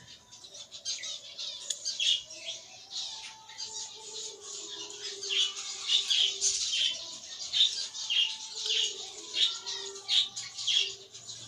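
Budgerigars chirping and chattering, many short high chirps coming thick and fast.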